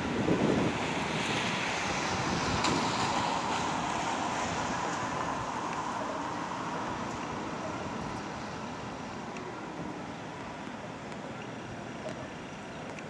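Wind buffeting the microphone over street traffic noise, the whole slowly fading quieter.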